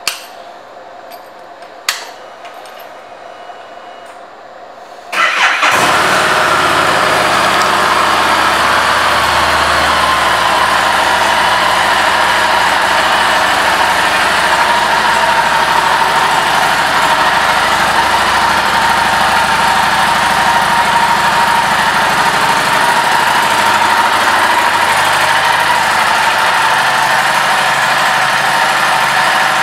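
Harley-Davidson Street 500's liquid-cooled 494 cc V-twin: two clicks at the controls, then the engine starts about five seconds in and idles steadily.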